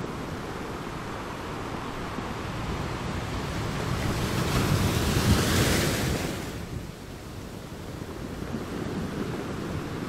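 Surf washing in a steady rush, with one swell that builds to its loudest a little past halfway, then drops away quickly.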